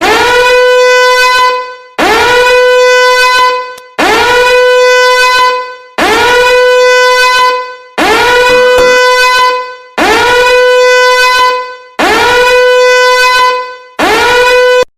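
A loud horn blast sound effect repeated eight times, one every two seconds. Each blast scoops up in pitch at the start, holds one steady note for about a second and a half, then fades. The last one is cut off short.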